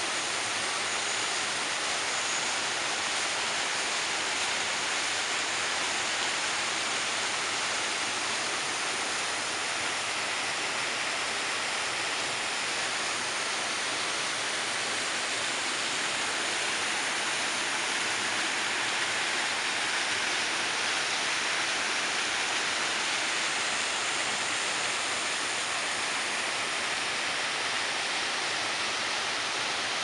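Steady rushing and splashing of a small waterfall spilling over rocks into a pool of water.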